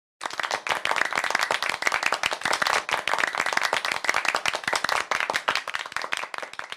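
Applause: many hands clapping densely, thinning out near the end.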